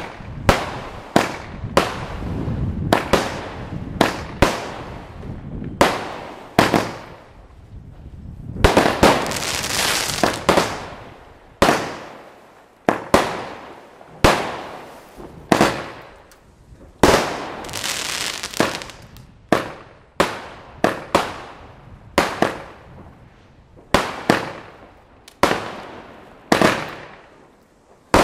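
Cudak Battery, a 25-shot consumer firework cake, firing its shots one after another: a steady string of sharp bangs about a second apart. Twice a longer hissing stretch runs under the bangs.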